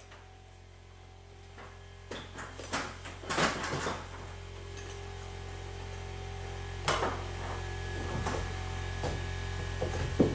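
Scattered knocks and clicks from crown molding and tools being handled during installation: a cluster of knocks a few seconds in and a single sharp click near the middle. A steady low hum runs underneath.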